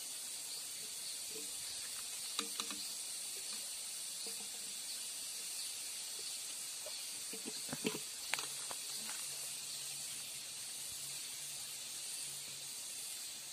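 Steady high hiss of outdoor background noise, with a few faint clicks about two seconds in and again around eight seconds.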